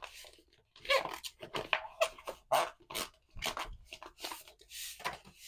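Plastic squeegee scraping over holographic laminate film in short irregular strokes as the film is smoothed down, with the film and its backing sheet crinkling.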